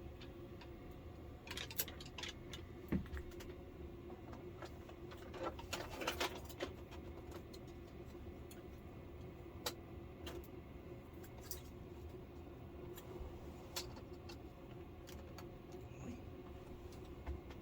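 Scattered light clicks and rustles from an LCD TV panel and its plastic frame being handled, louder a few times near the start, over a steady low hum.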